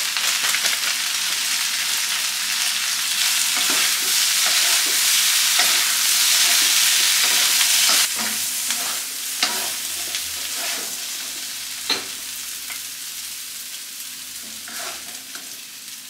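Stir-fry of beef, tofu skin and green chillies sizzling in a wok while a wooden spatula stirs and scrapes it. The sizzle is loud at first, drops suddenly about halfway through and then fades. A few sharp knocks of the spatula against the wok come after the drop.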